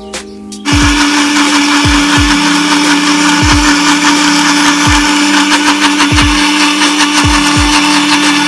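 Electric countertop blender switched on under a second in and then running steadily at full speed, blending yogurt with fresh coriander into a smooth green raita.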